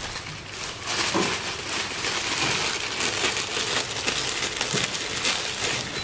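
Thin plastic bag crinkling and rustling while a handful of fresh red chillies is pulled out of it.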